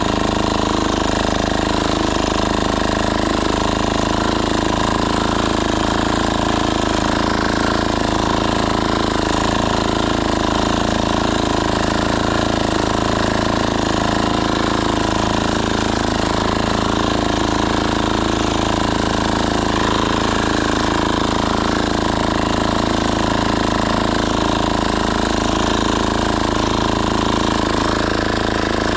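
Diesel walk-behind tractor engine running steadily while tilling soil with rotary cutters, a continuous even engine note with no change in speed.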